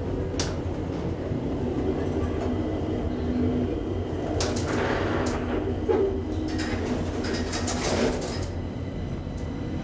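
Deve-Schindler telescopic hydraulic elevator travelling in its shaft, a steady low hum with sharp clicks and rattles about half a second in and again several times from the middle to near the end.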